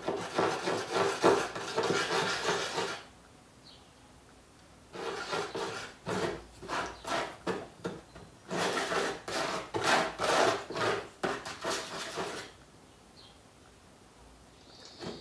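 A yellow plastic paint scraper dragged over a textured painted board, spreading paint in quick rasping strokes. The strokes come in spells, with short pauses a few seconds in and again near the end.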